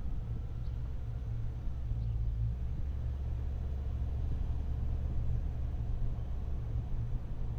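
A car driving, with a low, steady rumble of engine and tyre noise.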